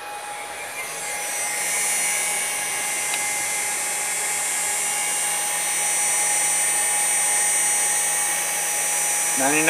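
VFD-driven CNC router spindle spinning up to about 10,000 RPM: a high-pitched whine that rises in level over the first couple of seconds, then holds steady.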